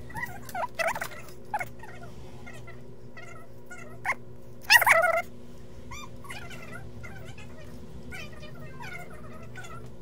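Animal calls: many short chirping calls with a louder call about five seconds in, over a steady low hum.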